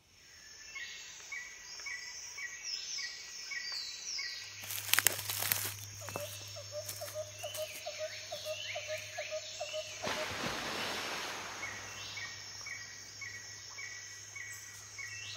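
Woodland ambience: birds calling in runs of short repeated chirps over a steady high insect buzz. There is a brief loud crunching rustle about five seconds in, the loudest moment, and a short rush of rustling noise near ten seconds. A low steady hum sets in about four seconds in.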